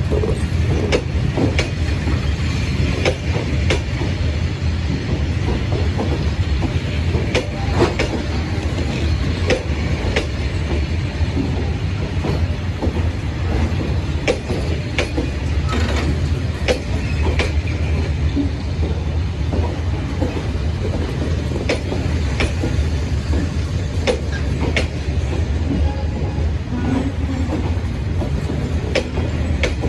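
Diesel-hauled passenger train running along the track: a steady low rumble, with repeated sharp clicks of the wheels passing over rail joints.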